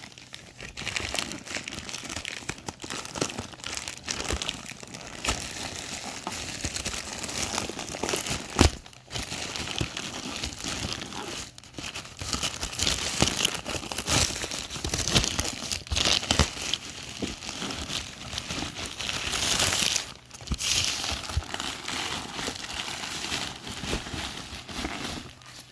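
Parcel wrapping being torn open and crumpled by hand: a continuous crinkling and tearing with many small crackles, growing busier in the second half, with one sharp crack about eight and a half seconds in.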